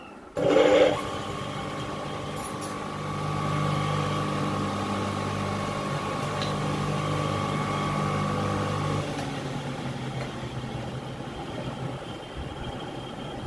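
Freshly rewound single-phase electric motor switched on with a sudden loud start about half a second in, then running at full speed with a steady hum and a thin whine. About nine seconds in the whine and hum drop away and it goes quieter.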